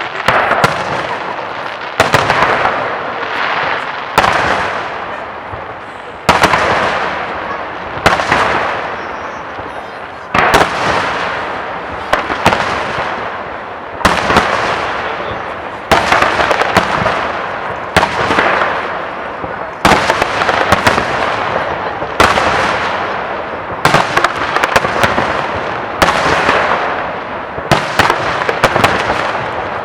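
Fireworks display, shells bursting about every two seconds, each sharp bang followed by a long fading echo that runs into the next.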